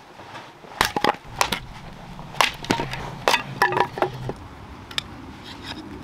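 Sharp cracks and snaps of someone working by hand at lighting a campfire, about a dozen, irregularly spaced and starting about a second in.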